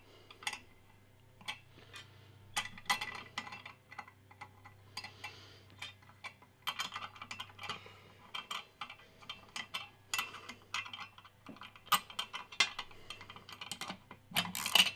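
Small steel bolts and clamp plates being fitted and snugged down on a Garrett GTX3582 turbocharger's compressor housing with a wrench: irregular light metallic clicks and taps, coming thicker in the second half.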